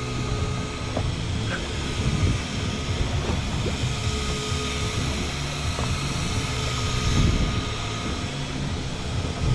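Motor running steadily: a low drone with a thin, steady high whine that fades near the end.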